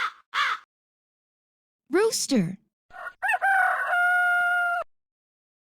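A hooded crow caws twice at the start. About three seconds in, a rooster crows once, a cock-a-doodle-doo that ends on a long held note.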